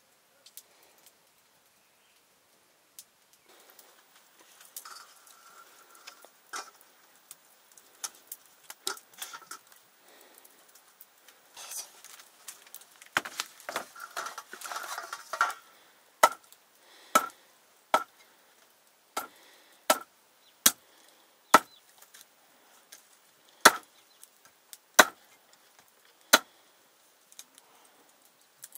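Chopping with a knife on a wooden board. Light scattered taps and scraping come first, then a stretch of quick cuts, then about ten hard single chops, roughly one a second.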